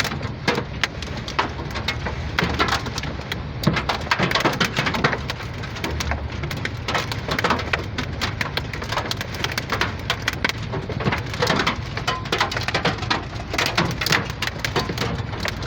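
Heavy rain pattering on hard surfaces: a dense, steady crackle of countless drops.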